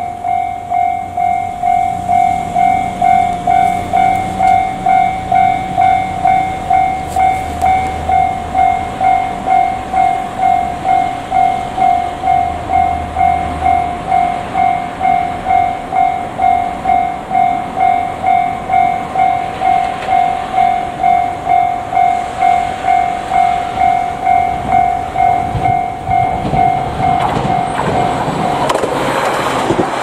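Japanese level-crossing electronic alarm ringing in a steady, evenly pulsing rhythm with the barrier down, stopping near the end as a JR Kyushu 817 series electric train's rumble rises and the train runs through the crossing.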